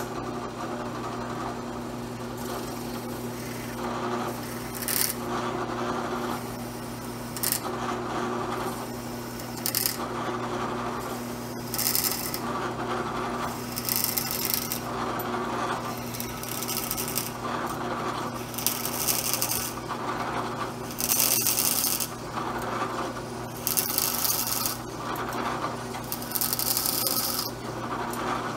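Drill press motor running with a steady hum while a brad point bit cuts into a resin pen blank in short pecks, the cutting noise coming in repeated bursts every second or two as the bit is fed down and backed out to clear the chips.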